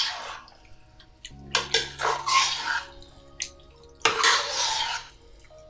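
A spoon stirring chopped tinned tomatoes into browned minced beef in a pan. The wet stirring comes in bursts: several strokes in the middle and one longer stroke near the end.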